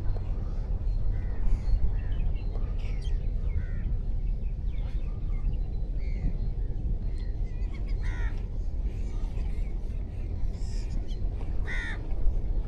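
Harsh, crow-like bird calls, short and scattered, the loudest coming about eight seconds in and near the end, over a steady low rumble.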